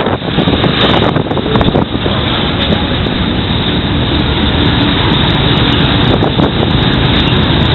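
Loud, steady engine noise mixed with wind buffeting the microphone.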